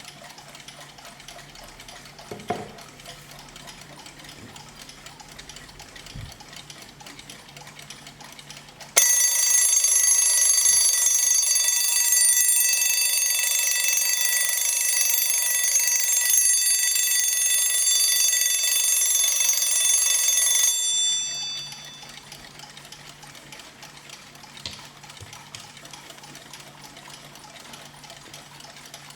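Alarm clock's bell ringing continuously for about twelve seconds, starting suddenly and then stopping. It is a bright, high ring made of many steady tones. Before and after it there is only a faint hum with a couple of small clicks.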